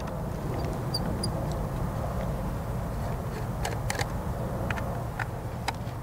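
Steady low rumble in the background, with a few faint clicks in the second half as a screwdriver turns the captive lid screws of a plastic splice-unit enclosure.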